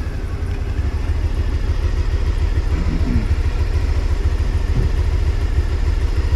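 Motorcycle engine running steadily, with no clear revving, recorded from the rider's helmet camera.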